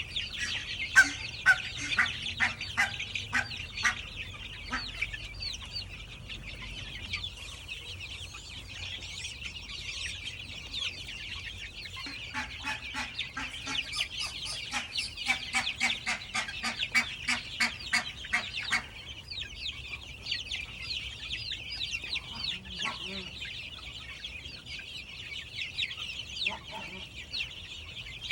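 A brood of Black Australorp, Delaware and New Hampshire Red chicks peeping constantly, many high chirps overlapping. Twice, a run of quick, lower-pitched clucks joins in, lasting a few seconds each time: early on, and again in the middle, where it grows faster.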